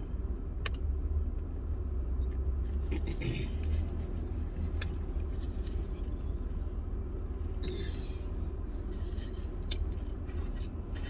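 Chewing a crispy chicken sandwich, with faint mouth clicks and a couple of soft rustles, over a steady low rumble in a car cabin.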